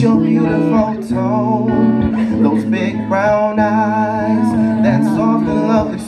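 Live band music: a man singing into a microphone over electric guitar. His held notes waver with vibrato.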